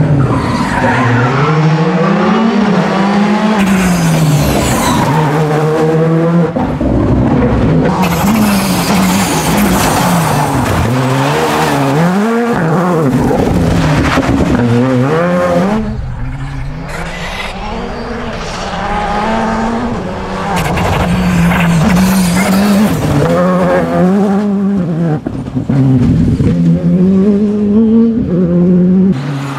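Škoda Fabia Rally2 rally cars' turbocharged four-cylinder engines at full race pace, revving up and dropping back again and again through gear changes and corners, with several car passes following one after another. The engines are a little quieter for a few seconds around the middle.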